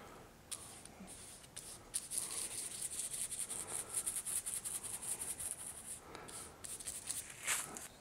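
Paintbrush scrubbing thin oil paint onto a painting panel, a faint scratchy rubbing. It comes in quick back-and-forth strokes from about two seconds in, then as a few separate strokes near the end, laying in an underlayer.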